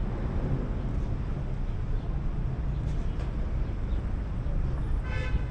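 Steady low rumble of vehicles and engines on a city street under construction, with a short high-pitched tone about five seconds in.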